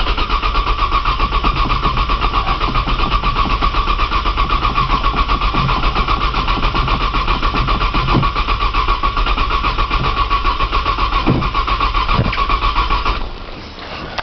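Starter motor cranking a cold 1995 Nissan Maxima V6 that won't catch: an even, rhythmic churn with a steady starter whine. The cranking stops about a second before the end without the engine starting.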